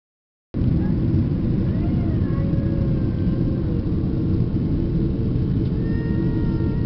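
Jet airliner cabin noise in flight: a steady low rumble of the engines and airflow, heard from a window seat over the wing. It starts suddenly about half a second in.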